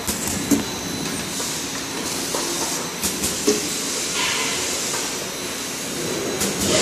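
Automatic labeling machine running: a steady mechanical whir and hiss, broken by a few sharp clicks.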